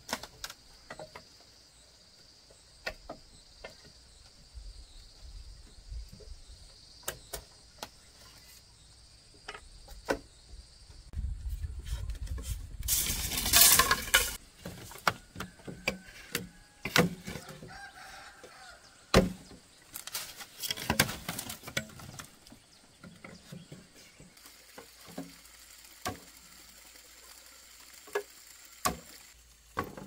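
Scattered knocks and clatter of things being handled, with a louder noisy, scraping stretch about halfway through. A faint steady high tone runs through the first half.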